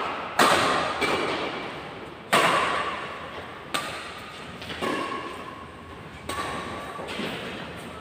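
Badminton rackets hitting a shuttlecock back and forth in a rally: about seven sharp hits a second or so apart, each ringing on in the echo of a large hall.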